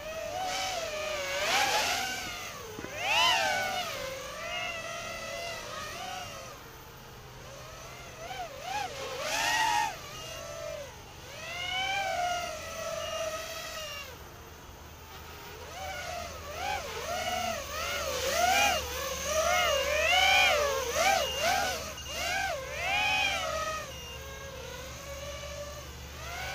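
Brushless motors of an Eachine 180mm tilt-rotor multirotor, run on a 4S LiPo, screaming in flight, the whine swooping up and down in pitch with each throttle punch. The bursts come thick and fast in the second half, with a quieter lull near the middle.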